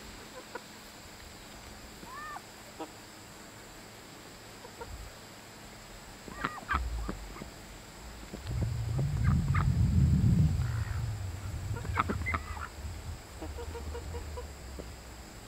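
A backyard flock of chickens and other poultry calling now and then: scattered short clucks and squawks, with a low rumble for a few seconds around the middle.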